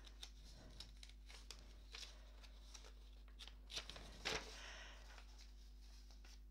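Sheets of paper being handled and rustled, with a few light clicks and taps; the loudest rustling comes around four seconds in.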